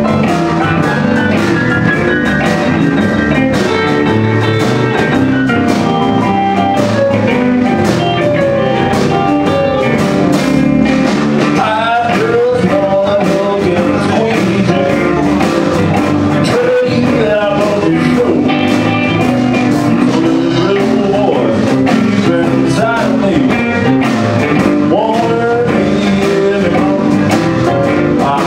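A blues band playing live, with two electric guitars, keyboard, bass and drums.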